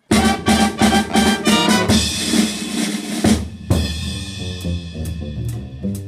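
Jazz trio of hollow-body electric guitar, double bass and drum kit starting abruptly, loud: about three seconds of repeated accented hits played together, then drums with cymbals and a bass line stepping from note to note.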